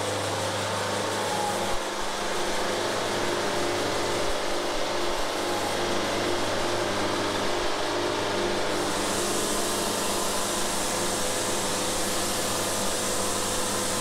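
Band sawmill running steadily as the saw head goes back to take another board off the cant, with a single short knock about two seconds in; the hiss grows brighter about nine seconds in.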